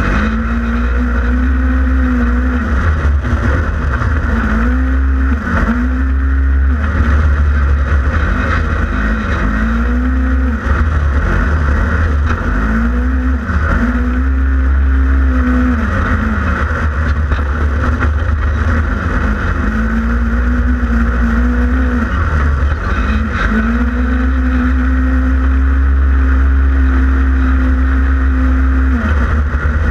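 Polaris RZR 1000XP side-by-side's twin-cylinder engine being raced hard. The engine note climbs and holds, then drops away, again and again, over a heavy steady low rumble.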